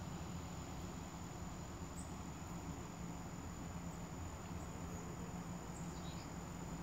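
Quiet outdoor ambience: a steady low hiss with a faint, thin, high-pitched whine held on one note throughout.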